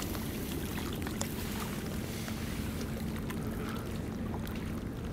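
Steady low outdoor rumble of wind and water at the bank, with a faint steady hum through the middle.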